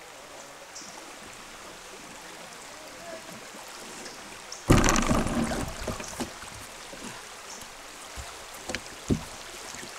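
River water rushing past a canoe's hull as it runs a shallow riffle. About halfway through there is a sudden loud splash and bump that fades over a second or so, and near the end two short knocks.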